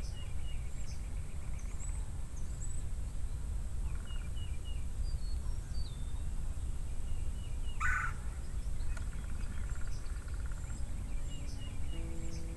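Outdoor dawn ambience: small birds chirping in short repeated phrases over a low steady rumble, with one louder, rattling call about eight seconds in. Soft guitar music comes in near the end.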